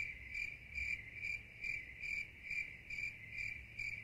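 Crickets chirping in a steady chorus, pulsing evenly about two to three times a second.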